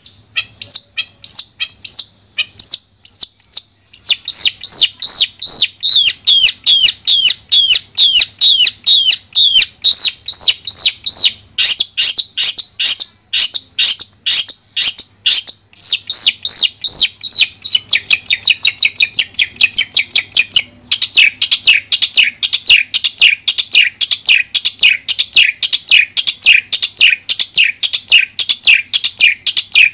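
Long-tailed shrike (cendet) calling: sharp, repeated chattering notes, about four a second. The notes are sparse for the first few seconds, then come in a dense, unbroken stream.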